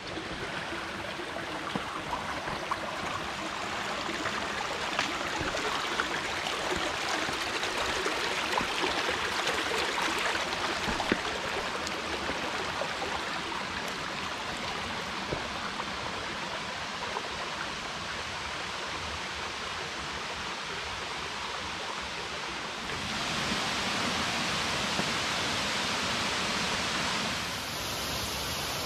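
Creek water running over rocks, a steady rush with a few faint ticks, louder and brighter for a few seconds near the end.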